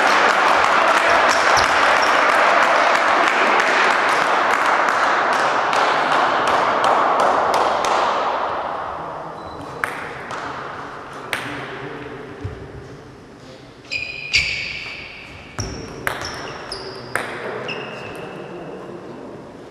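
Crowd clapping and noise that fades out over the first several seconds. Then a table tennis ball bounces on the table and paddle: separate sharp clicks, each with a short ringing ping.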